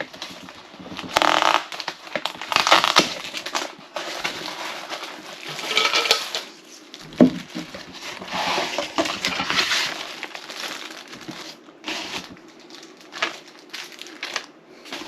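A cardboard box of car speakers being opened and its packaging handled: irregular rustling, crinkling and scraping, with one sharp knock about seven seconds in.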